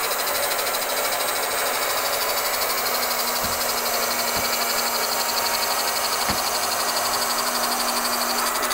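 Hand-held electric round-knife cloth cutter running steadily as its circular blade cuts through a stack of fabric layers, with a few faint low knocks.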